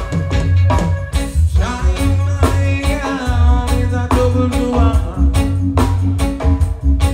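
Live band playing: electric guitar over a drum kit keeping a steady beat of about two hits a second, with a strong, deep bass underneath.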